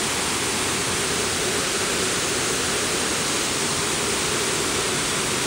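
Waterfall rushing: a steady, even roar of falling water close by.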